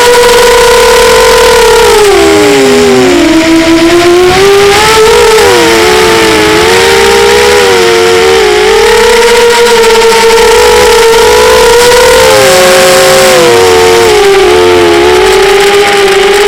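Model airplane engines running at high revs: one close, loud engine and a second one very near it in pitch, both buzzing steadily. Their pitch dips sharply about two seconds in and then wavers up and down as the throttle and airspeed change, the two tones drifting apart and crossing.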